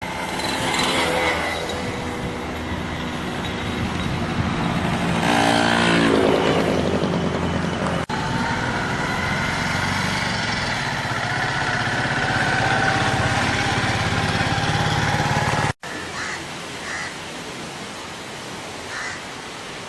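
Road traffic: motor vehicle engines running and passing, with a pitch that falls and glides as they go by. The sound cuts off abruptly twice, about eight seconds in and again near sixteen seconds.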